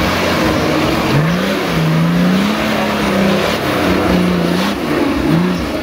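Nissan Patrol 4x4's engine revving hard under load off-road, its pitch rising about a second in, holding, then dipping and rising again near the end with the throttle. By its sound, the commentator takes it for a modified, swapped engine.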